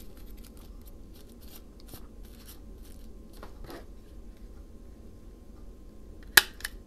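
Paper being accordion-folded by hand, with light rustling and creasing. Near the end comes one sharp click, followed by a smaller second one.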